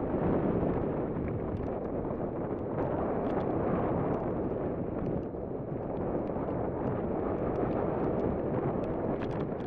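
Wind rushing over the microphone of a camera riding on a fast-descending mountain bike, mixed with the rumble and rattle of the 2011 Cannondale Jekyll full-suspension bike rolling over rocky dirt singletrack, with scattered small clicks.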